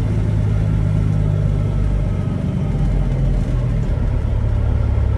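Caterpillar 6NZ (3406E) inline-six diesel of a Peterbilt 379 running under way, heard from inside the cab with a deep steady engine note. The note changes about four seconds in.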